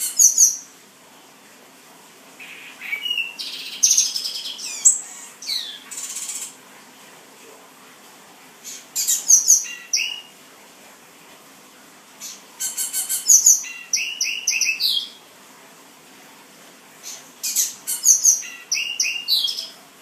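Male black-and-white seedeater singing: bursts of quick, high notes repeated about every four seconds, with short pauses between phrases.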